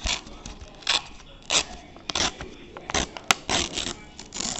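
Sheet of yellow paper being torn by hand in a series of short rips and crinkles, about one every half second, with a sharper crack a little past three seconds in.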